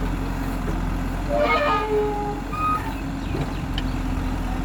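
Diesel engine of a JCB backhoe loader running steadily at a low, even drone. A person's voice calls out briefly over it about a second and a half in.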